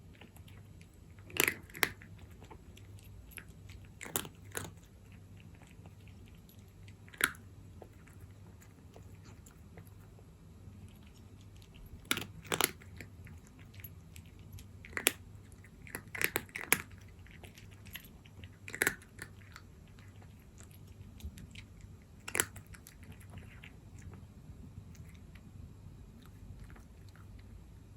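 A cat crunching dry kibble: sharp crunches, singly or in quick pairs, every few seconds, falling quiet for the last few seconds, over a faint steady low hum.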